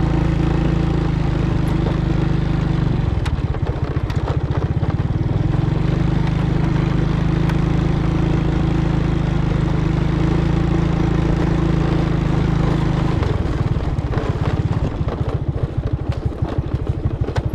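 A small engine running steadily. Twice, for a few seconds each (about 3 s in and again about 13 s in), the hum drops into separate, evenly spaced firing pulses, as when the throttle is eased off.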